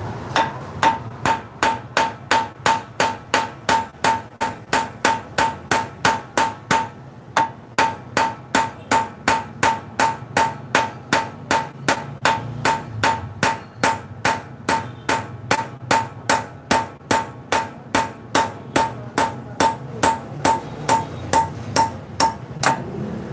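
Steady hammering on steel, about two to three blows a second, each with a metallic ring: a hammer driving a worn wheel stud out of an Isuzu truck's wheel hub, a stud grooved deep at the neck and due for replacement. There is a brief break about seven seconds in, and the blows stop near the end.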